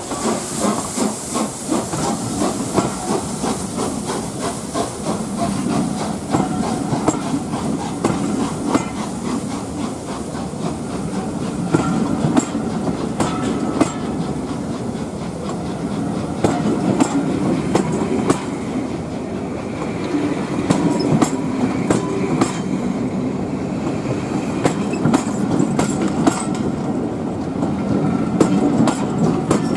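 Steam-hauled passenger train's coaches rolling along, their wheels clicking and clattering over rail joints above a steady rumble.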